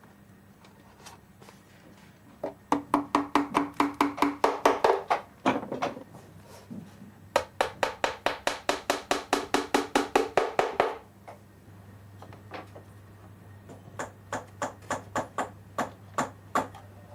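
Hammer tapping rapidly, about six strokes a second, in two long runs, then slower and lighter taps near the end.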